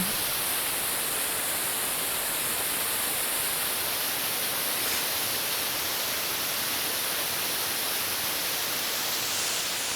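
Steady rushing of a waterfall, an even hiss that holds constant.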